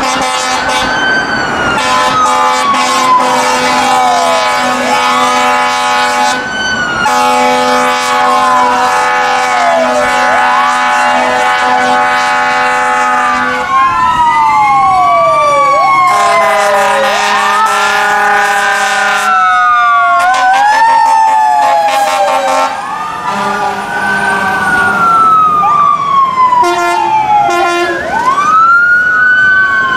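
Sirens of an LAFD fire apparatus and rescue ambulance convoy, several wailing at once, rising and falling and overlapping, with long blasts of a fire truck air horn over the first half and again briefly later. Twice the sirens switch briefly to a fast warble.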